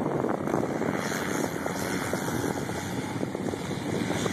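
Sport quad ATV engine idling close by, a steady rough running noise.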